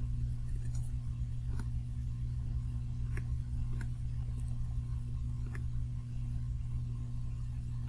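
Steady low electrical hum with a handful of faint, sharp clicks scattered through it, clicks of a computer mouse.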